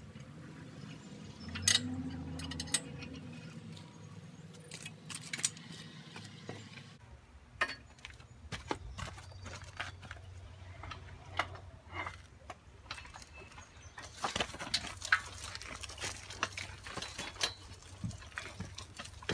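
Scattered light metal clinks and knocks from tools and steel loader parts being handled, over a faint low hum.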